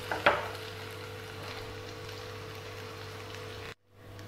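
Potato cubes sizzling steadily in hot mustard oil in a frying pan, with one sharp spatula stroke just after the start. The sizzle cuts off suddenly near the end.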